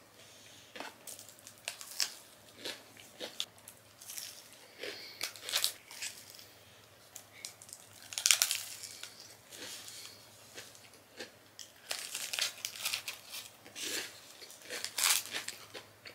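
Paper food wrapper crinkling as it is handled and peeled back, with crisp crunching bites and chewing of a fried potato snack.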